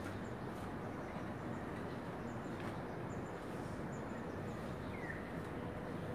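Steady low rumbling background noise, with a few faint short high chirps.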